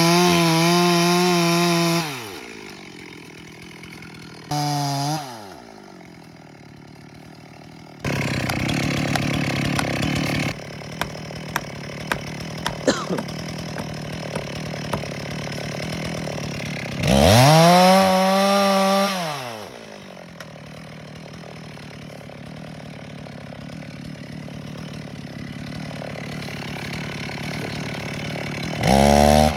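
Stihl chainsaw repeatedly revved to full throttle and let fall back to idle, three long revs with a short blip between. About eight seconds in there is a stretch of steadier, noisier running, then a run of sharp cracks and clicks.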